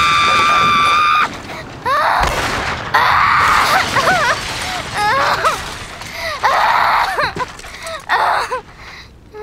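A high, held scream that cuts off about a second in, followed by a run of short, wavering cries that bend up and down in pitch, broken by hissing bursts.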